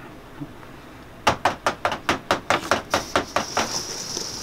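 Stainless steel mixing bowl of sugar-coated maraschino cherries being shaken by hand on a metal counter: a quick run of about a dozen clattering knocks, roughly five a second, then a steady high hiss as the cherries roll around in the confectioners' sugar.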